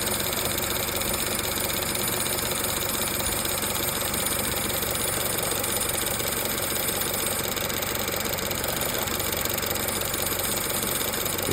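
A 2014 Chevy Cruze's 1.4-liter turbo Ecotec engine running steadily, with a light metallic rattle, a 'little jingle', coming from the serpentine belt tensioner pulley. The rattle is the sign of a worn belt tensioner.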